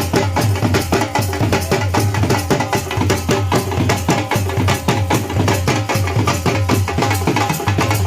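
Drums playing a fast, driving dhamal rhythm, with a loud pulsing bass stroke under a dense run of sharp strokes.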